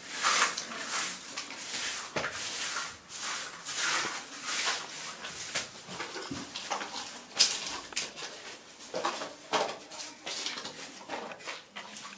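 Thin fuse sticks and plastic six-wheel ground-chakra frames being handled by hand: dry rustling, scraping and light clicks in short, irregular bursts.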